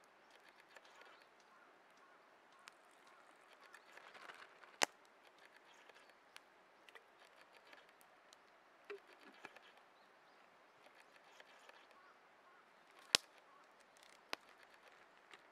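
Soft rustling of a plastic zip-lock bag being handled, with scattered faint clicks and two sharp louder clicks, one about five seconds in and one near the end.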